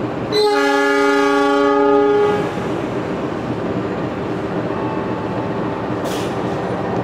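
Train horn sounding one long chord of several steady notes for about two seconds, starting about half a second in, then the steady rumble of a train.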